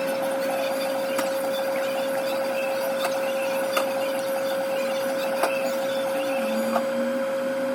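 A steady electrical or machine hum at one constant pitch over a noisy background, with about five scattered sharp clicks.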